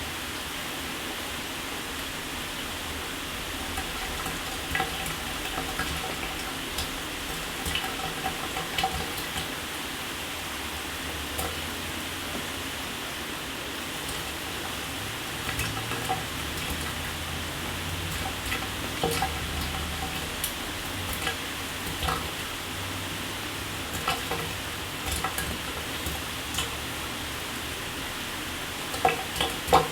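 Shower water spraying steadily, with scattered sharp splashes and drips, a few louder ones near the end.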